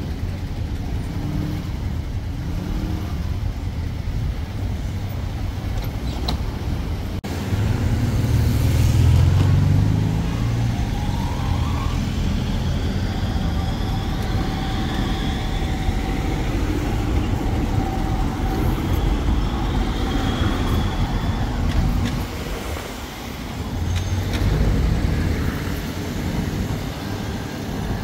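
Trams and road traffic on a city street: a steady rumble of passing vehicles, louder for a couple of seconds about eight seconds in, with a steady whine through the middle.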